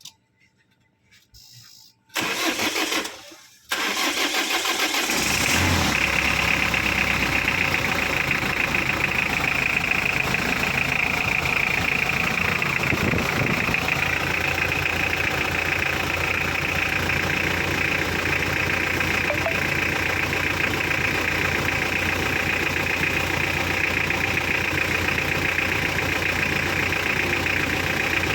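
Hyundai car engine being started: the starter cranks for about a second and a half, then the engine catches and settles into a steady idle.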